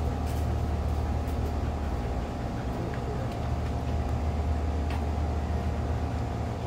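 Steady low mechanical hum with a faint whine held on top, and a few light clicks.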